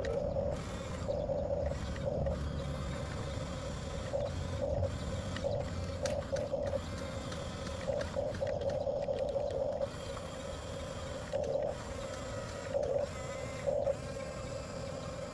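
Electric drive motors and plastic-and-metal gearboxes of a 1/14-scale Huina RC bulldozer whining in short bursts of uneven length, starting and stopping again and again over a low rumble.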